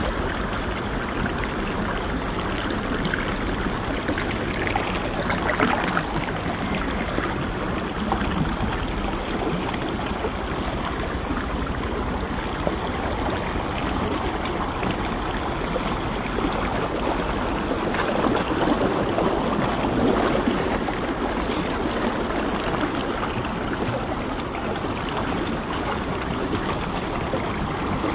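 Shallow, fast stream rushing and splashing over rock ledges, a steady flow with a louder swell about six seconds in and again around eighteen to twenty seconds.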